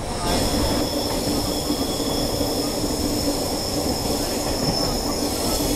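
Passenger train coaches running on steel rails, heard from an open coach doorway. Over a steady running rumble, the wheels squeal in several steady high tones that set in just after the start; the highest fade near the end.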